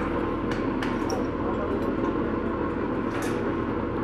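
Light knocks on steel livestock-pen railings, two in the first second and one more about three seconds in, over a steady low hum.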